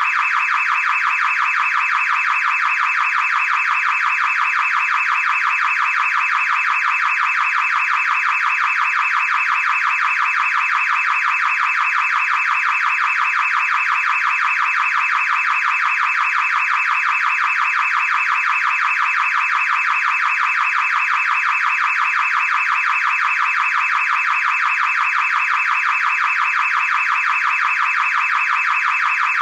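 Car alarm siren sounding continuously: a shrill, rapidly pulsing tone at an unchanging level.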